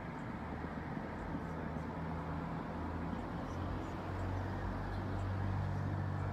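A vehicle's engine running with a low, steady hum over street noise, growing louder about halfway through.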